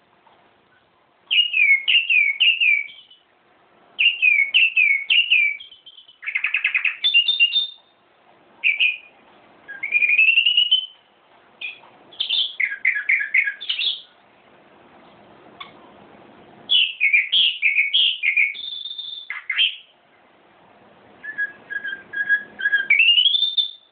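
A songbird singing loud whistled phrases, each a quick run of repeated sliding notes, in about seven bursts separated by short pauses.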